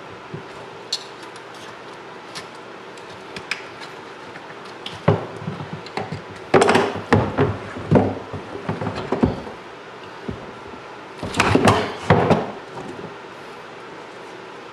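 Irregular knocks, clatter and rustling from hands and a towel working a bear skull in a utility sink, in two louder flurries around the middle and near the end.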